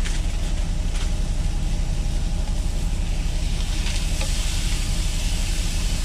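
Frozen vegetables sizzling in a hot frying pan while a plastic spatula stirs them, with a few short scrapes; the sizzle grows stronger about four seconds in. A steady low engine rumble runs underneath.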